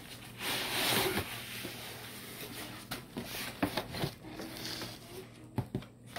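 Cardboard laptop box and its foam packing inserts being handled: a long rustling scrape of cardboard about a second in, then several light knocks and taps as the foam pieces are lifted out.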